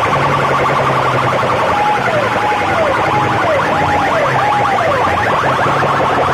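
Electronic siren and alarm tones blasted through massed horn loudspeakers. A rapid run of short rising chirps plays throughout, with a low steady hum beneath. From about two seconds in, a wailing tone falls and rises again about every half second for a few seconds.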